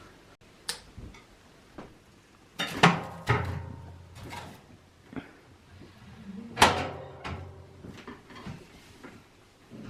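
A few separate knocks and clatters of household objects being handled, the two loudest about three and about six and a half seconds in.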